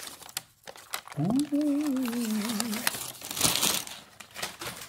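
Newspaper wrapping crinkling and rustling as it is pulled apart by hand, with a louder crumple about three and a half seconds in. Between about one and three seconds a man's voice holds a long, wavering hum.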